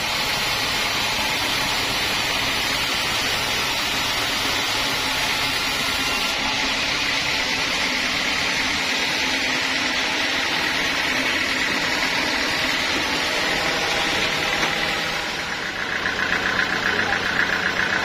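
Sawmill machinery running: a steady, engine-like drone. About fifteen seconds in it dips briefly, then changes to a louder, pulsing hum.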